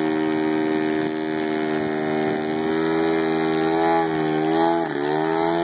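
Single-cylinder or twin 3W 150cc gas engine and propeller of a 42% scale Yak RC aerobatic plane running at high throttle, holding the plane in a nose-up hover with its tail dragging on the grass. The pitch holds steady, then dips briefly near the end and picks up again as the throttle is worked.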